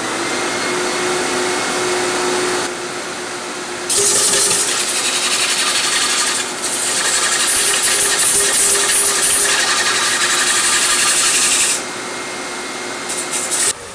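A wood lathe comes up to speed with a rising whine, with dust collection running. Coarse 60-grit sandpaper on a sanding stick hisses against the face of a spinning Jatoba cutting board, loudest from about four seconds in to about twelve. The machine noise cuts off abruptly just before the end.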